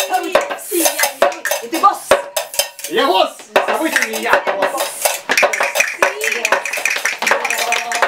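Rapid metallic clattering and scraping from a handheld metal bowl, dense and uneven. Wordless vocal sounds rise and fall over it in the first half, and a steady held tone comes in near the end.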